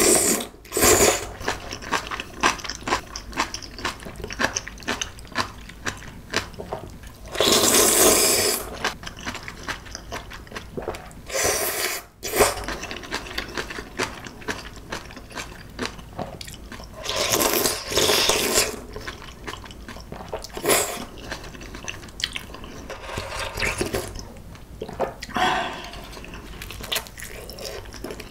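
Close-miked eating of clam kalguksu: wet chewing and mouth clicks throughout, with long noodle slurps about 8 seconds in and again about 18 seconds in.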